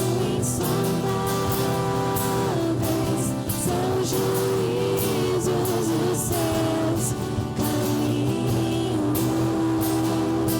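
Live worship band playing a song with sung vocals on long held notes over guitar and drums.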